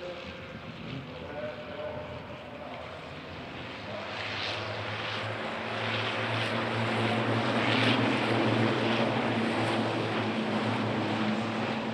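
Race trucks' diesel engines running at speed as a steady droning note, growing louder from about four seconds in, with several short hisses over the top.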